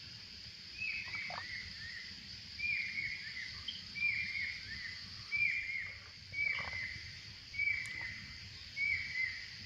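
A bird calling over and over, each call a short run of quick falling notes, repeated about every second and a half, against a steady high insect drone.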